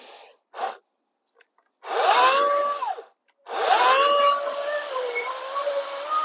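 Wild Badger 40V cordless electric chainsaw whining up to speed for about a second and winding down, then started again and kept running. Its pitch drops a little and wavers as the chain goes into the log.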